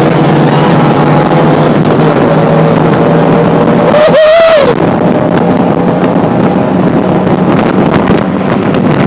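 Tuk tuk engine running hard at speed, with wind and road noise, heard from inside the open cab. A short shout rises and falls about four seconds in.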